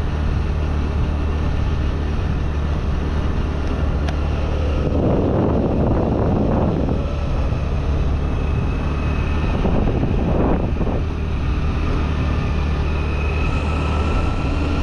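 A vehicle engine running steadily on the move, a low constant hum under road and wind noise. The rushing noise swells about five to seven seconds in and again around ten to eleven seconds.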